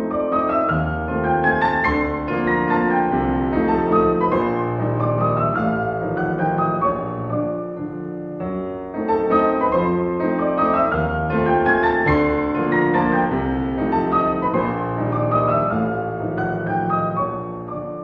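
Background piano music: a gentle phrase of rising and falling notes over held bass notes, played twice.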